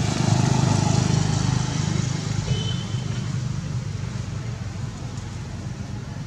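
Motor vehicle engine running, a steady low rumble that is loudest for about the first two seconds and then fades away.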